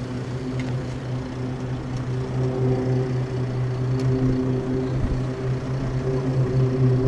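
Airbus A380's jet engines droning steadily on a low approach with gear down, slowly growing louder as the airliner comes nearer.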